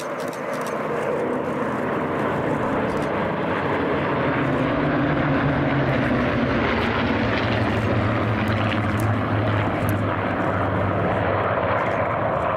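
Formation of Merlin-powered Spitfires flying overhead, their V12 piston engines droning together. The sound builds over the first couple of seconds, then holds loud and steady.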